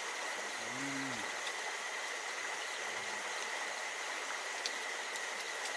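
Steady rushing of a stream, with a constant high-pitched tone over it. A short murmured voice sounds about a second in, and a single sharp click comes near the end.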